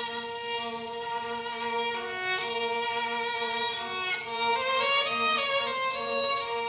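Instrumental background music: a slow melody of long held notes that step from pitch to pitch over a steady low sustained note.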